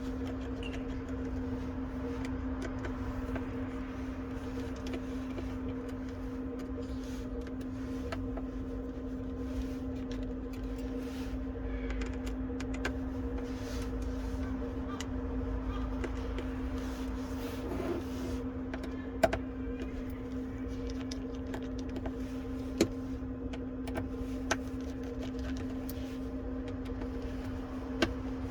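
Small scattered clicks and taps of tools working the tiny screws out of a smartphone's back, a few of them sharper, over a steady low electrical hum.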